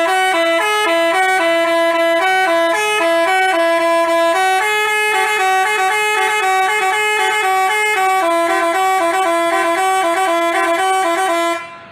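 Telolet basuri bus horn playing a melody of quick notes stepping back and forth, loud and unbroken, then cutting off suddenly near the end.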